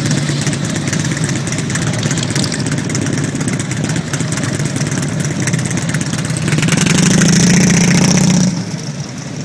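Harley-Davidson touring motorcycle's V-twin engine running at low speed close by. It grows louder about six and a half seconds in, then drops off sharply near the end as the bike pulls away.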